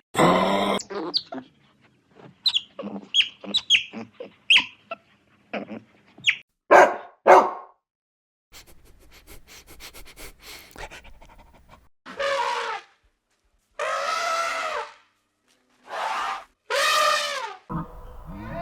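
Animal calls: a run of short sharp cries, a few seconds of faint rustling clicks, then four long calls with several pitches each.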